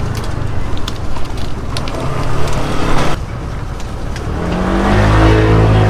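Roadside traffic noise. About four seconds in, a large vehicle's engine hum rises in pitch and then holds steady and louder, with a few sharp clicks over the rumble.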